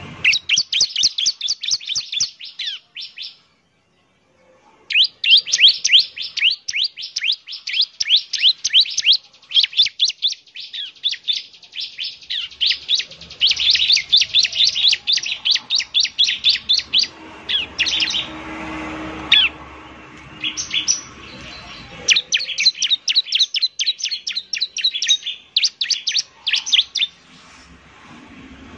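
Bar-winged prinia (ciblek) calling: fast runs of sharp, high chirps, broken by a short pause a few seconds in.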